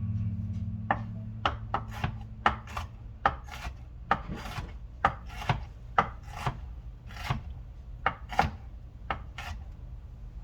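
Kitchen knife chopping vegetables on a chopping board: irregular knocks of the blade on the board, roughly one to two a second, some followed by a short scraping slide.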